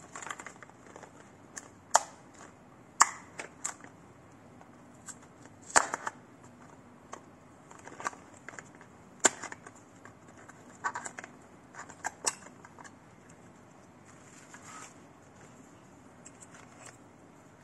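Cardboard-and-clear-plastic lure box being handled and opened by hand: scattered sharp clicks and short crinkling rustles of card and plastic, with a few louder snaps.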